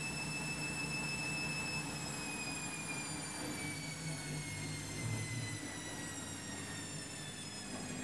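Front-loading washing machine in its final spin: the motor's high whine holds steady, then falls steadily in pitch from about two seconds in as the drum's spin speed drops, over a low hum.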